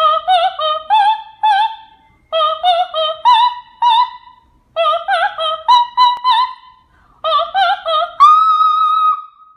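A high-pitched operatic voice singing unaccompanied: four short phrases of quick notes with vibrato, separated by brief pauses. The last phrase ends on a long held high note.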